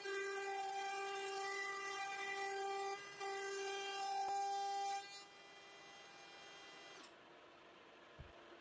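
DeWalt cordless compact router running with a 3/8-inch cove bit, routing along a wooden strip: a steady high-pitched whine that dips briefly about three seconds in and cuts off about five seconds in.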